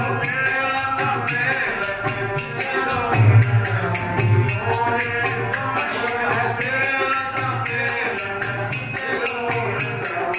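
Rajasthani devotional bhajan: harmonium and singing over a dholak beat, with hand-held jingling percussion keeping a fast, even pulse of about four to five strokes a second.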